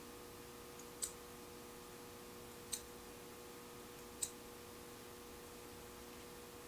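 Three sharp, short clicks about a second and a half apart over a faint steady hum.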